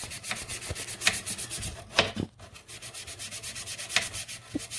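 Fast back-and-forth scrubbing of a plastic camper sink part with cleaning powder, about eight scratchy strokes a second, with a brief pause a little over two seconds in.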